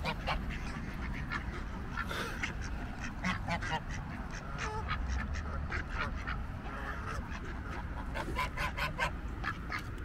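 A flock of geese and ducks calling: many short honks and quacks, overlapping and closely spaced.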